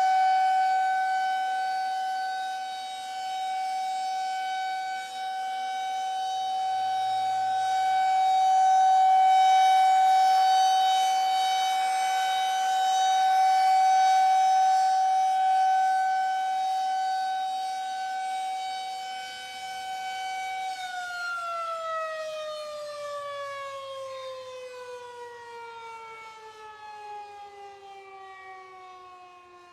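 Air-raid warning siren holding one steady high tone for about twenty seconds, then winding down, its pitch falling smoothly as it fades.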